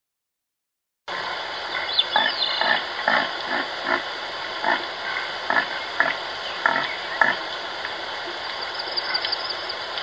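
Red deer stag: a run of short, low sounds about twice a second, starting about a second in, over an outdoor background with faint birdsong.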